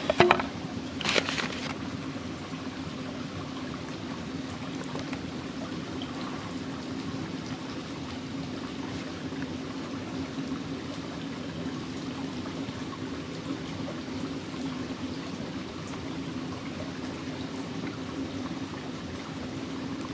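Steady running water of a stream, an even trickling rush. In the first second and a half come two sharp knocks on the wooden board, the loudest sounds.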